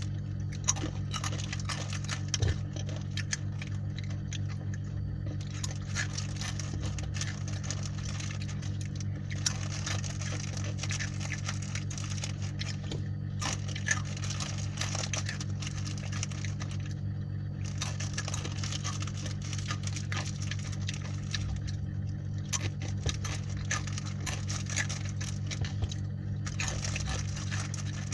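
Crunchy fried spicy macaroni snack being chewed: scattered small crunches and crackles over a steady low hum.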